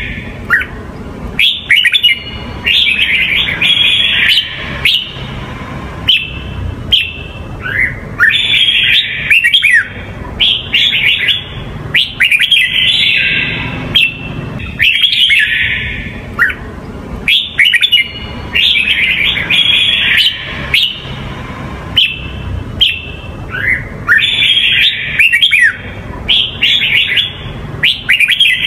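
Red-whiskered bulbul singing: quick clusters of clear whistled notes and short up-and-down glides, repeated every second or two. It is the Huế-style song used to train young bulbuls.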